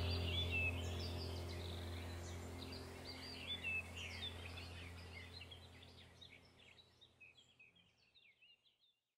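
Birds chirping over a low, steady hum, the whole sound fading out gradually to silence near the end.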